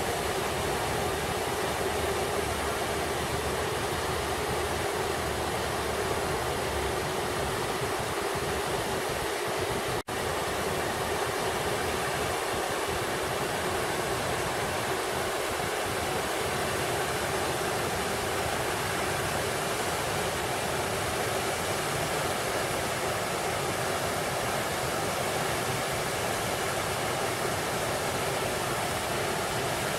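Triberg waterfalls cascading: a steady, even rush of falling water, with a split-second break about ten seconds in.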